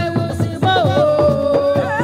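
Music playing loudly: a wavering, ornamented melody line over a steady drum beat.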